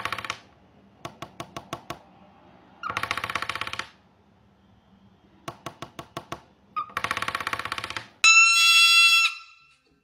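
A person's fingertips tapping a wooden tabletop in short runs of about seven or eight taps, each answered by a cockatiel drumming its beak on the table in a fast rattling roll, each roll opening with a brief chirp; this exchange happens three times. Near the end, a sulphur-crested cockatoo gives a loud, steady-pitched call about a second long.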